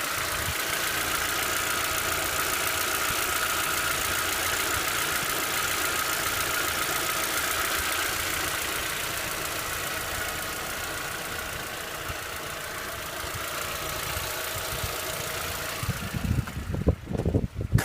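VW Passat B5 engine idling hot, with its hydraulic lifters knocking. About sixteen seconds in, the steady engine sound gives way to uneven low thumps.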